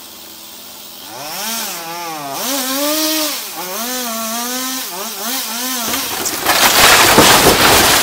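Chainsaw cutting into roof timbers, its engine pitch rising and falling over and over as it bites. About six seconds in, a loud crash of breaking timber as the roof and wall collapse, continuing to the end.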